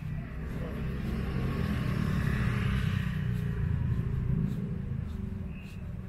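A motor vehicle passing close by: a low engine rumble and tyre hiss swell over the first few seconds and fade away near the end.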